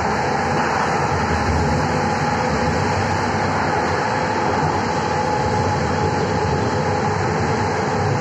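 A Budapest Millennium Underground (M1) car running at speed through the tunnel, heard from inside the car: a steady rumble of running gear with a steady whine over it.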